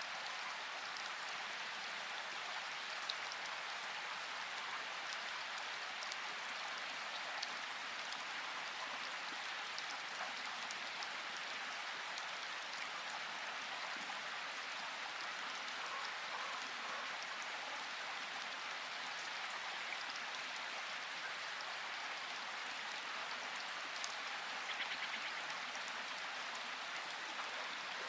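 Steady rain falling, an even hiss, with single drops striking close by every few seconds and a brief run of quick ticks near the end.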